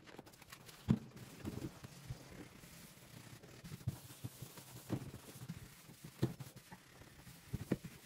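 A wet cloth wrung out over a plastic basin, then rubbed and scrubbed over the plastic interior walls of a refrigerator: faint wiping with a few light knocks and clicks.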